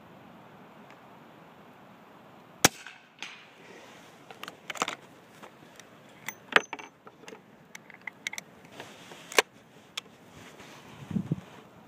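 Suppressed shots from a T/C Contender short-barreled rifle firing 125-grain .38 Special through a Bowers VERS-9S suppressor: three sharp cracks, about four and then three seconds apart. Between them come smaller clicks and knocks, and a dull thump near the end.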